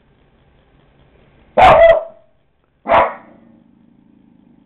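A dog barking twice, loud and about a second apart; a faint low steady hum follows the second bark.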